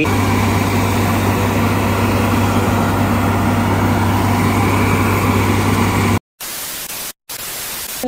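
Combine harvester running close by: a loud, steady engine hum under an even rush of machinery noise. About six seconds in the sound cuts off, leaving a quieter hiss that drops out twice briefly.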